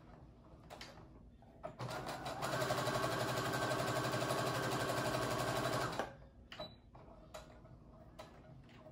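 Brother electric sewing machine stitching a straight seam through cotton mask fabric. It starts slowly about two seconds in, runs at a steady speed for a few seconds, and stops about six seconds in.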